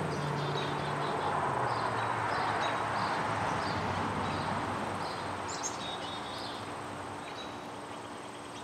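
Garden ambience: short, high bird chirps repeat every second or so over a steady rush of background noise, and an insect's buzz fades out in the first second or so.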